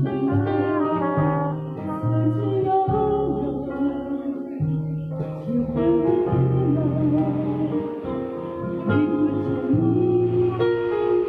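Live band music: a woman singing into a microphone over trumpet and saxophone, with a bass line moving note by note underneath.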